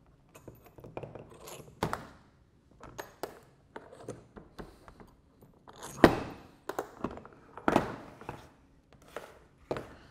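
A string of knocks, clunks and scrapes as the metal body of a Schmidt Thompson Valve II and its base bolts are handled and set down on a table while the valve's base is taken off. The loudest knock comes about six seconds in.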